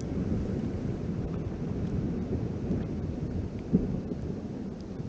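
Continuous low rumbling and crackling of ice falling and breaking in a glacier front, with one sharp knock a little before the end.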